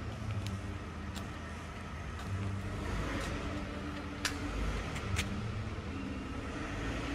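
Footsteps on a concrete floor, sharp clicks about once a second, over a steady low rumble and hum of a large warehouse.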